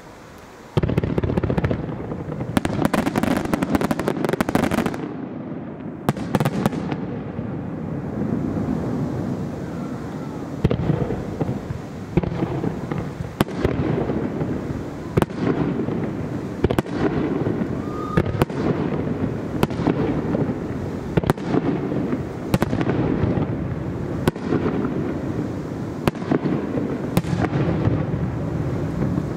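Aerial firework shells launching and bursting in quick succession, starting suddenly about a second in. Sharp bangs come about once a second over a continuous rolling din.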